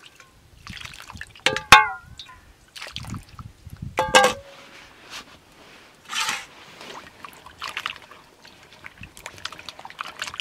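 Water trickling and pouring off potatoes as an aluminium basin is drained past a metal plate. The plate knocks against the basin with a few ringing metal clanks in the first half, the loudest about two seconds in. A brief splash comes about six seconds in, then hands swish and rub the potatoes in the water.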